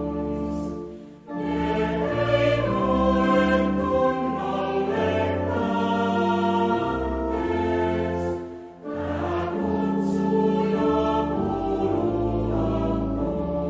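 A choir singing a slow hymn in long held notes, with two short breaks between phrases: one about a second in and one a little after the middle.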